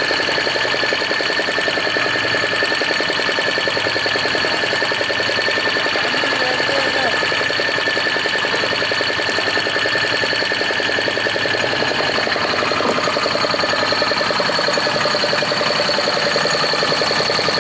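A boat engine running steadily, its rapid firing pulse even throughout, with a steady high-pitched whine over it.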